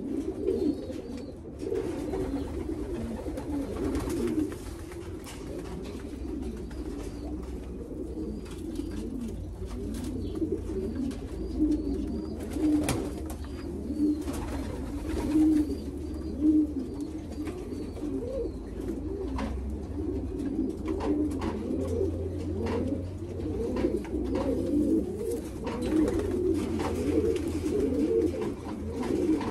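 A loft full of racing pigeons cooing, many birds at once in a continuous overlapping low warble. Scattered sharp clicks and taps sound through it, over a steady low hum.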